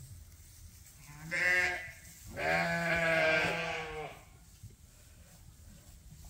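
A sheep bleating twice: a short bleat about a second in, then a longer, steady bleat lasting nearly two seconds.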